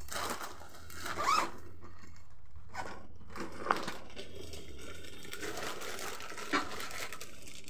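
Rustling of new clothes and their plastic packaging being handled, with two short sharp clicks.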